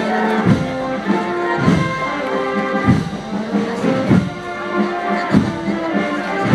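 Brass band playing a slow processional march: held brass notes over a low drum beat about once a second.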